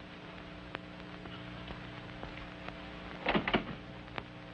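Steady hum and hiss of an old optical film soundtrack, with a couple of faint clicks, then a brief rattle about three and a half seconds in as a door handle is tried on a locked door.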